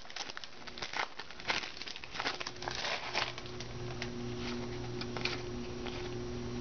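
Baseball trading cards being handled and flipped through, making a run of light clicks and rustles of card stock. A low steady hum comes in about halfway through.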